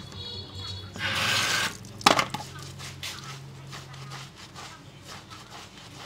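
Hands scrubbing shampoo lather through wet long hair at a shampoo basin, a soft wet squishing and crackling of foam. A short hiss comes about a second in, and a sharp click just after two seconds.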